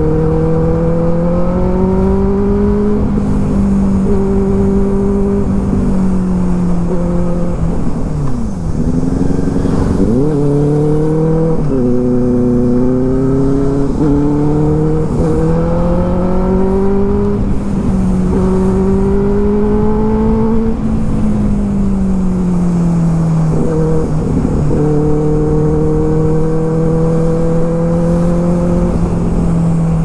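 Benelli TNT 600i inline-four engine with an IXIL aftermarket exhaust, running under way. Its pitch rises and falls several times as the throttle and gears change, with a sharp drop and a quick climb back about eight seconds in.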